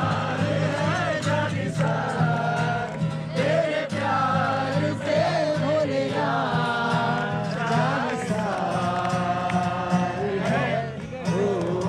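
Music: a voice singing a melody with long held notes over a steady low drone.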